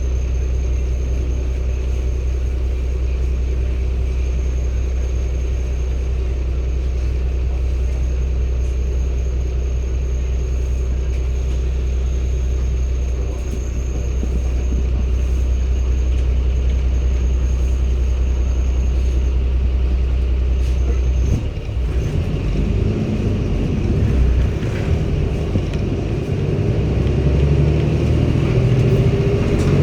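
Cummins ISB 280 PS six-cylinder diesel engine of a Daewoo NEW BS090 city bus running steadily at a low, even speed, then about two-thirds of the way through revving up with rising pitch as the bus accelerates.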